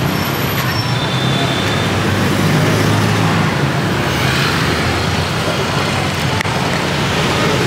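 Steady traffic noise with a low engine drone.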